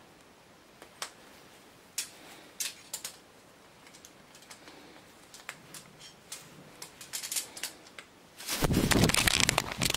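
Macaws' beaks and claws clicking and tapping on the metal bar of a clothes drying rack, scattered single taps at first and thicker toward the end. About a second before the end comes a loud, dense rustling flurry lasting about a second.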